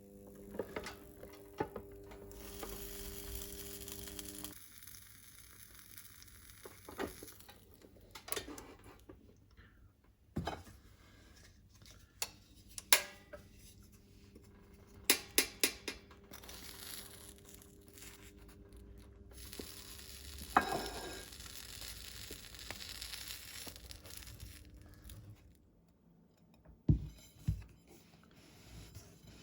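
Kitchen handling sounds: packaging crinkling and tearing, with sharp clicks and knocks from dishes or containers. A steady electrical hum runs under parts of it.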